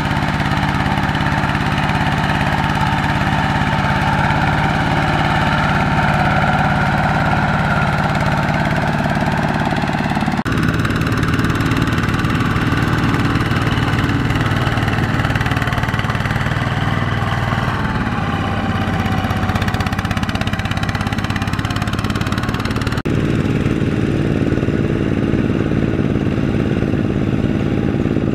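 Single-cylinder diesel engine of a two-wheel walking tractor running steadily under load as it drags a loaded trailer through paddy mud. The engine note changes abruptly twice, about ten seconds and again about twenty-three seconds in.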